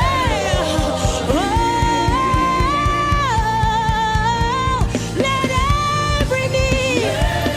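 Live gospel worship music: a lead voice sings long held notes that slide up and down between pitches, over a band with a steady drum beat.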